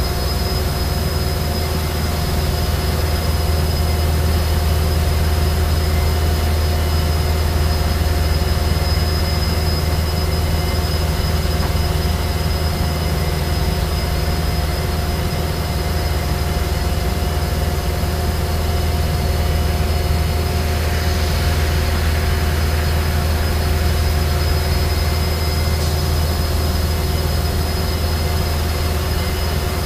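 Abrasive fast-wire CNC profile saw running steadily while cutting a dense polyisocyanurate foam block: a constant deep hum with several steady high whines over a hiss.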